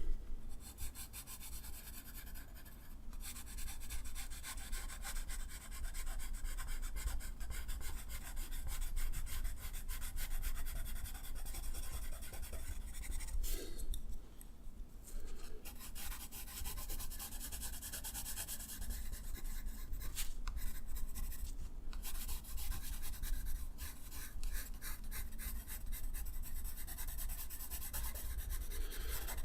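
A drawing tool scratching across drawing paper in quick, closely spaced strokes, pausing for about two seconds around the middle.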